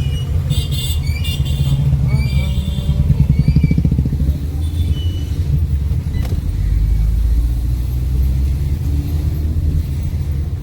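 A Fiat Linea driving, heard from inside the cabin: a steady low engine and road rumble, with a fast fluttering pulse about three to four seconds in and a few brief high chirps near the start.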